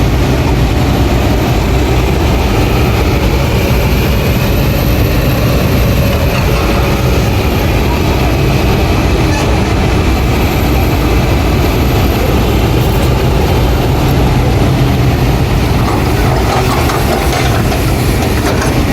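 Kobelco excavator's diesel engine running steadily under load as it digs, with a faint high whine that slowly rises and falls.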